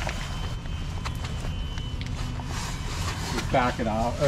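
Steady low rumble with a few light clicks, and a person speaking briefly near the end.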